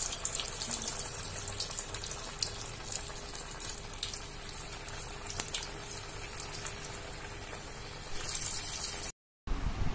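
Hot oil sizzling and crackling steadily as samosas deep-fry in a kadai.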